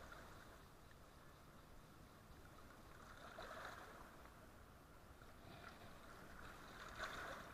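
Faint, steady rush of churning river water, swelling softly a couple of times.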